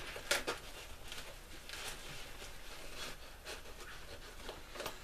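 Hands rummaging in a fabric gear pouch: faint rustling with scattered light clicks, the sharpest about a third of a second in.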